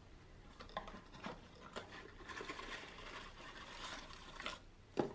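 Faint rustling and light clicks of a small cardboard gift box being opened by hand, its flaps folding back over the shredded paper filler inside, with a sharper tap near the end.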